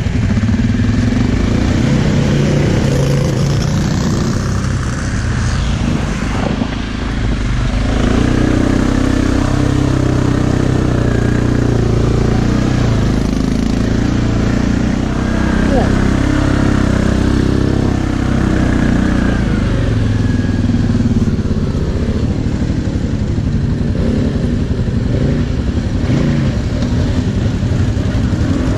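Suzuki KingQuad 700 ATV's single-cylinder four-stroke engine running under way on a muddy trail, its note rising and falling with the throttle, with other quads' engines around it.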